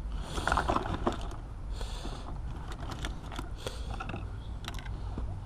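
Small hand tools and parts being handled and set down: scattered light clicks and taps, with a brief rustle about two seconds in, over a low steady hum.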